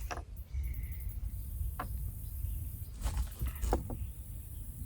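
A few short clicks and light scrapes of hands handling black powder pistol loading gear, over a steady high hiss of insects and a low rumble.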